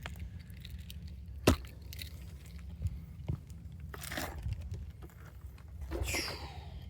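Crunching footsteps and rubbing handling noise on a camera carried while walking, over a low rumble, with one sharp click about a second and a half in.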